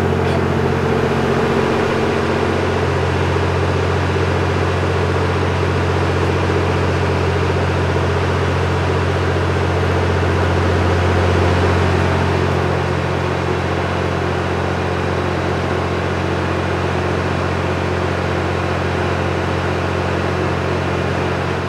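The Twilight Express Mizukaze (JR West 87 series) diesel-electric train standing and idling, its engines and auxiliary equipment giving a steady, even hum that eases slightly about halfway through.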